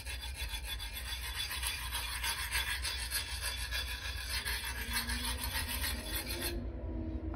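A metal file rasping in quick strokes along the edge of a VG1 steel santoku, taking off the cutting edge to dull the knife. It stops abruptly near the end.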